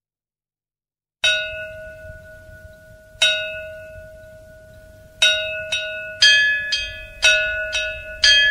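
Music: a bell-like tone is struck and left to ring, starting about a second in. It sounds twice, two seconds apart, then in quicker pairs, with a higher ringing tone joining later. This is the opening of a song, before the rest of the music enters.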